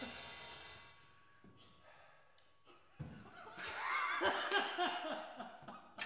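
A crash cymbal rings out and fades over the first second after the drum kit stops. From about 3 seconds in, a man laughs in short bursts.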